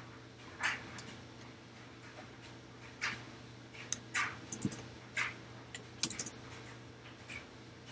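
Irregular clicking of a computer mouse and keyboard, about one click a second with some quick clusters, over a low steady hum.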